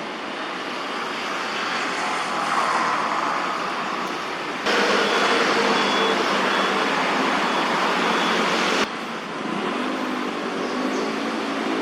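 Steady city traffic noise from the surrounding roads, with abrupt jumps in level about five and nine seconds in, where the footage cuts.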